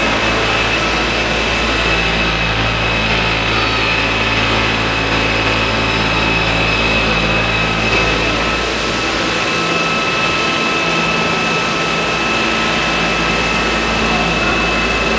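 Large-scale RC model of a Boeing-Vertol CH-47 Chinook helicopter with its tandem rotors turning, giving a steady high whine over a low hum.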